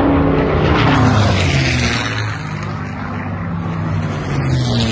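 Single-engine propeller airplane flying low overhead, its engine droning with the pitch sliding down as it passes.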